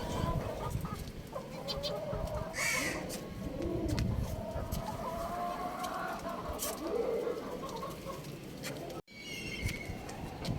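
Young rooster clucking and calling, with drawn-out pitched calls and a few short higher chirps.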